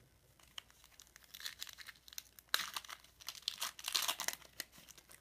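Crinkling and tearing of a foil trading-card pack wrapper being opened and handled, in irregular crackly bursts that are loudest around the middle and again a little before the end.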